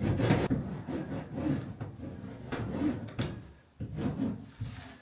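A hand roller being worked back and forth over foil-faced butyl sound-deadening mat (Kilmat) stuck to a van's thin sheet-metal panel: several uneven rubbing strokes, pressing the mat onto the bare metal.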